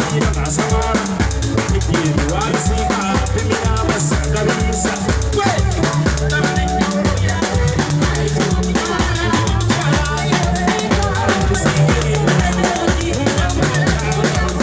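Music with a steady, driving drum beat and a melody over it.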